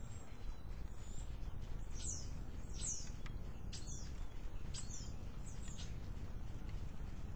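Hummingbird giving a series of short, high, falling chirps, about seven in a row around the middle, over a steady low background rumble.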